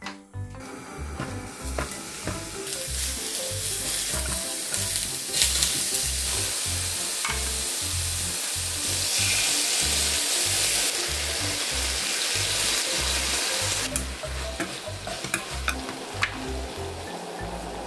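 King oyster mushroom slices sizzling as they fry in oil in a pan, louder in the middle, then frying coated in a gochujang sauce, with a few light clicks near the end. Background music with a steady beat plays underneath.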